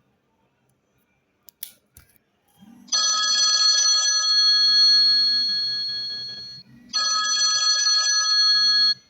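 A ringing tone made of several steady high pitches sounds twice. The first ring lasts about three and a half seconds and fades before it cuts off sharply. The second starts a moment later and lasts about two seconds.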